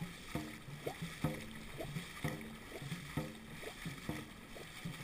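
Dragon boat crew paddling in rhythm: regular knocks about twice a second, each with a short low ring, over the wash of water along the hull.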